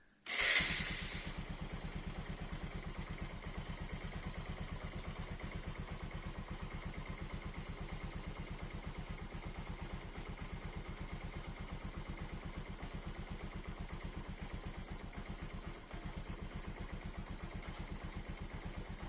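Bajaj Pulsar 135 LS single-cylinder four-stroke motorcycle engine starting at once on its electric starter about half a second in, then idling steadily. This shows the repaired starter motor works.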